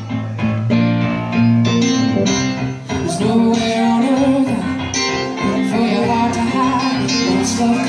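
Live song on electric guitar and keyboard: strummed electric guitar chords, with a singing voice coming in about three seconds in.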